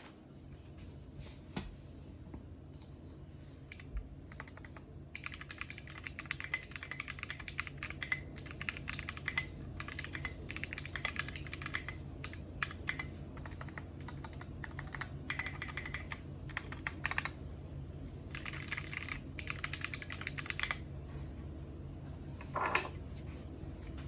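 Custom mechanical keyboard with linear switches being typed on in fast runs of keystrokes with short pauses between them, over a faint steady hum.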